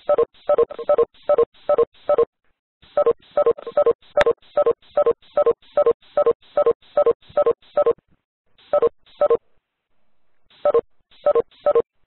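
Rapid run of short electronic beeps over a telephone line, about three a second, with a few pauses between runs. There is a single sharp click about four seconds in.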